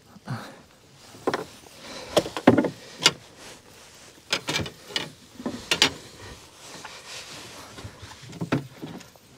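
A run of irregular knocks, thuds and rustles from something being handled close to the microphone. The loudest come about two to three seconds in and again around five to six seconds.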